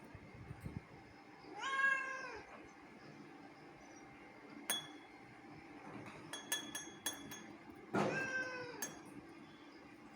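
A cat meowing twice, about six seconds apart, each a single drawn-out meow with a slight bend in pitch. A few sharp clicks fall between the two meows.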